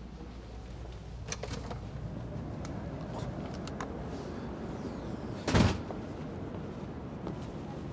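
A door clicking and clunking as it is passed through, with a few sharp knocks, then a brief loud rush of noise about five and a half seconds in, over a steady low rumble.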